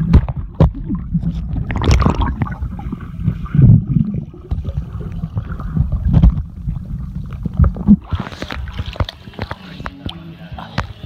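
Swimming-pool water and a swimmer heard through a camera held underwater: a muffled low rumble with knocks and gurgling as he moves. About eight seconds in the camera breaks the surface and the sound opens out with a splash.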